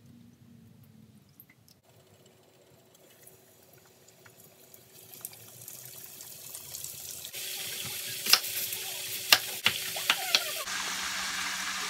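Chicken wings deep-frying in a pot of hot oil: a hiss that builds and turns loud, with several sharp pops and crackles near the end.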